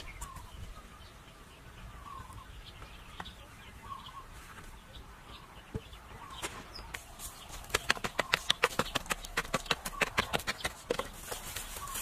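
Faint bird chirps, then from about halfway a quick run of sharp knocks, several a second.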